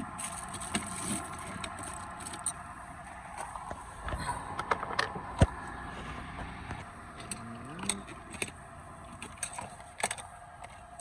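Screws being fitted into a car's interior door panel by hand: scattered small clicks, taps and scrapes of the screws, tool and plastic trim.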